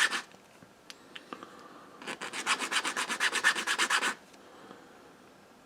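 Hand file scraping a relay's silver contact in quick back-and-forth strokes, about ten a second, briefly at the start and again for about two seconds in the middle. The contact is being filed to see whether it is solid silver or only plating.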